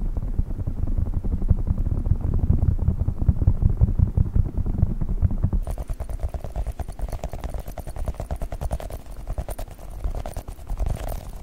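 Rapid, dense fingertip tapping on sponges, dull and muffled. About five and a half seconds in it switches abruptly to quicker, brighter tapping on globbles, squishy fidget-toy balls.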